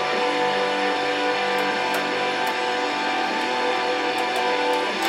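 Guitar music from a radio broadcast playing through the Sanyo M9994 boombox's speakers, with a few faint ticks.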